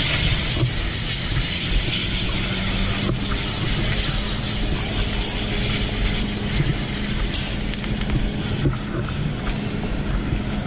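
Steady fireground noise: the drone of a fire engine's pump under a loud, even rushing hiss of water from hose streams, easing slightly near the end.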